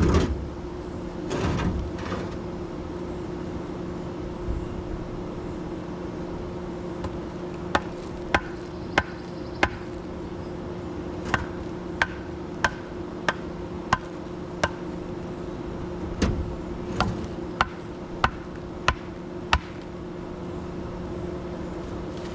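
Hammer taps in three runs of four, six and five sharp strikes, about one and a half a second, over a steady low hum.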